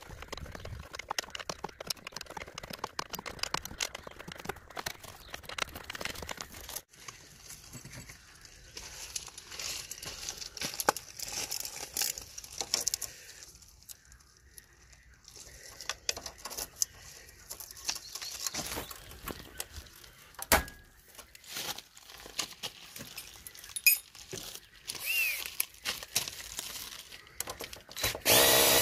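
Irregular metal clicks, clinks and scrapes of a socket and extension being worked on the lower rear shock absorber bolt of a Honda Dio scooter. Near the end a cordless drill driving the socket starts up and runs steadily on the bolt.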